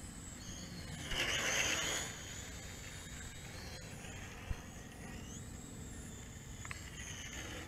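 A JJRC H11WH quadcopter's motors and propellers whine high and faint from overhead, the pitch rising and falling as it is flown, over a low rumble. A louder rush of noise comes about a second in and lasts about a second.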